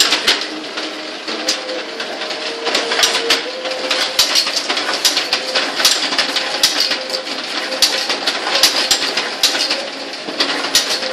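Bamboo-splitting machine for satay skewers running: a steady motor hum under frequent, irregular sharp cracks and clacks as bamboo is split into strips.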